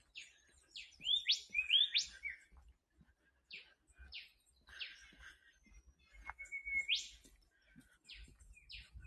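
Wild birds calling in bush, a series of short whistled notes, several sweeping sharply upward, with one longer held note near the end of the calls that snaps up in pitch.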